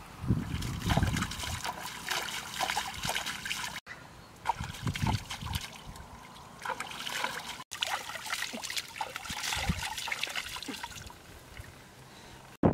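Water splashing and trickling as a plucked chicken is dipped and swished about in a shallow ditch, in irregular splashes and drips.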